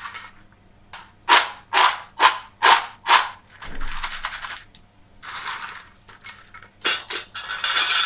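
Crisp fried cashew-shaped maida snacks rattling in a stainless steel bowl as it is tossed: five sharp rattles about half a second apart, then longer spells of dry clattering and swishing as they are tossed again and poured onto a steel plate near the end. The hard, dry rattle is the sign of how crisp the snacks are fried.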